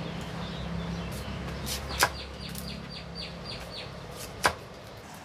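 A heavy knife striking a bamboo tube, two sharp knocks about two seconds apart, with a quick run of about ten crackling ticks after the first as a thin strip splits away along the bamboo.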